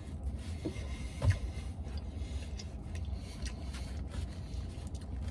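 Paper napkin and shirt fabric being handled and rustled, with a soft thump about a second in, over a steady low rumble.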